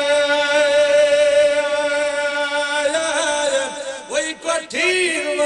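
A man's voice chanting an Islamic supplication (munajat) through microphones. He holds one long, steady note for about three seconds, then breaks into wavering melodic turns.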